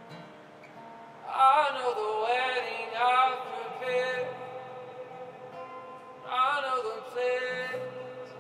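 Worship music: a male voice sings two long, bending phrases, about a second in and again near the end, over a soft held instrumental backing.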